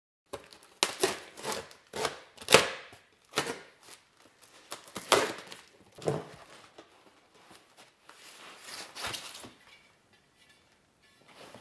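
Unpacking a cardboard box: a run of sharp cuts, rips and scrapes of a knife through packing tape and cardboard, loudest about two and a half seconds in. Near the end comes softer rustling of packing paper as a rim is lifted out.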